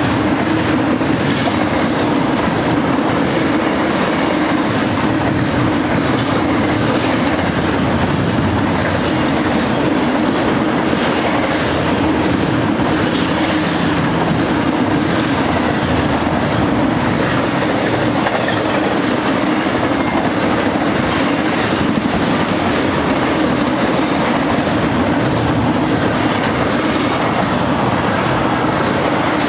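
Double-stack intermodal freight train cars rolling past: a steady noise of steel wheels on the rails, with no breaks or changes.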